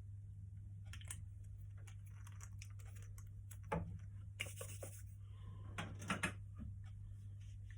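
Scattered small clicks and knocks, the loudest a little under 4 s in and a pair around 6 s in, over a steady low electrical hum.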